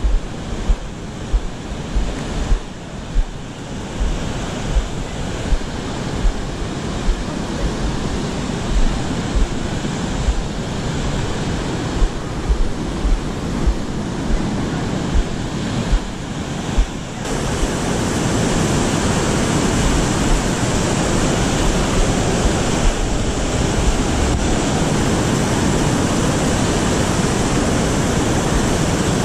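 Steady rush of whitewater from river rapids, with low thumps on the microphone about once a second. About two-thirds of the way in, the water noise steps up louder and fuller and stays there.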